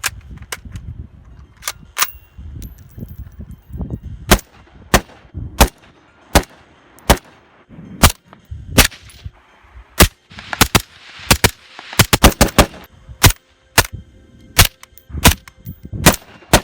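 Desert Tech MDR bullpup rifle in 5.56 NATO firing semi-automatically: many sharp, irregularly spaced shots, with a quick string of several rapid shots about twelve seconds in.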